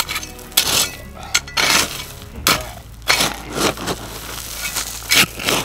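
Digging in loose volcanic cinders: a string of irregular crunching scrapes as a tool bites into and shifts the gravelly cinders.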